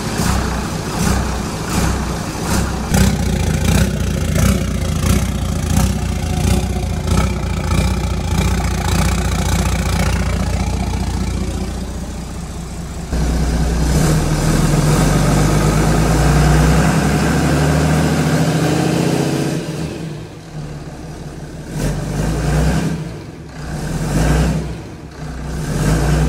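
Cummins marine diesel engine running with a steady clatter, then revved up about halfway through, its pitch climbing for several seconds before falling back and rising again in a few swells near the end.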